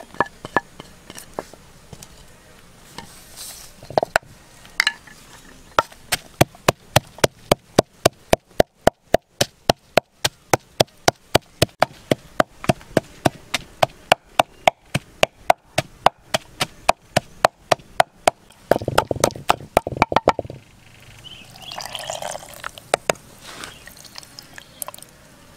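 Pestle pounding red chilies and herbs in a mortar: a steady run of sharp knocks, about three a second, lasting some fourteen seconds after a few scattered knocks. Near the end the knocking gives way to a brief rough grinding noise.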